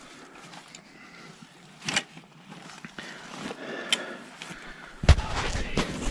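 Footsteps of a person walking outdoors, with scattered crunches and a few sharp knocks; a heavy bump about five seconds in, followed by a low rumble.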